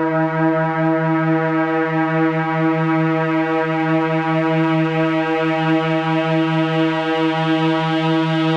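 Dreadbox Erebus v3 duophonic analog synthesizer holding a single sustained drone note rich in overtones, pulsing slightly about every two seconds and growing brighter toward the end.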